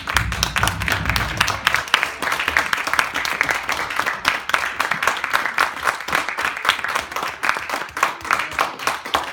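Audience applauding, a dense run of sharp hand claps that carries on without a break.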